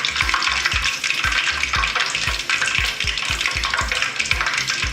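Marinated quail pieces deep-frying in hot oil with a steady sizzle. Under it runs background music with a beat of about four low thumps a second.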